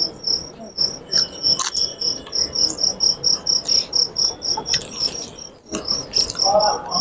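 A cricket chirping steadily: a high, even pulse repeating about four times a second.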